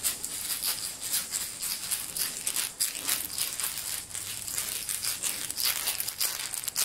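Handheld rattle shaken in quick, uneven shakes, a dense run of dry clicks and rustles.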